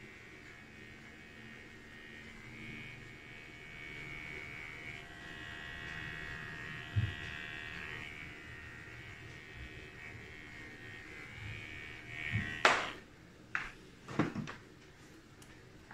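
Electric hair clippers buzzing steadily as they trim the hair around the ear and nape, falling silent about three-quarters of the way through. A few sharp knocks follow near the end.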